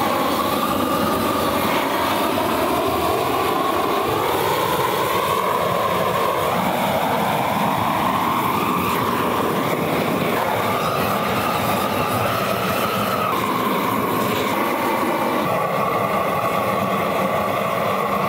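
Propane torch flame running steadily: a loud, even rushing noise with a whistling tone in it that shifts in pitch a few times.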